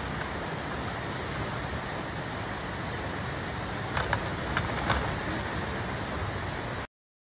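Swollen floodwater of a fast river rushing steadily in a dense, even noise. A few short sharp clicks come about four to five seconds in, and the sound cuts off suddenly near the end.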